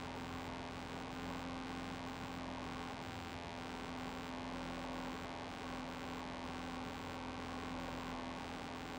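Zenith CH 750 Cruzer's engine and propeller droning steadily in cruise flight, heard faintly inside the cockpit as an even noise with a constant low hum.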